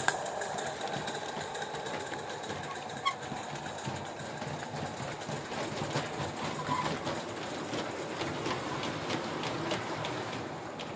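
Gas-fired G-gauge live-steam model locomotive running with its wagons on the track: a steady, fast rhythmic clatter.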